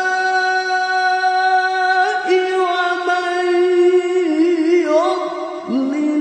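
Male Quran reciter chanting tilawah into a microphone. He holds one long note, changes pitch about two seconds in, and winds through a wavering melodic ornament near the four-second mark. After a brief break for breath, he starts a new phrase on a lower note near the end.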